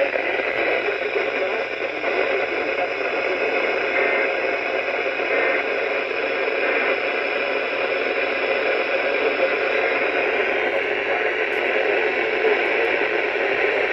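Weather radio receiver hissing with steady static, a weak or lost broadcast signal.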